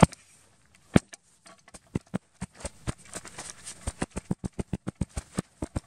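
Small snow shovel's blade slapping loose powder snow again and again to pack it down, short sharp knocks that come sparsely at first and then about four a second.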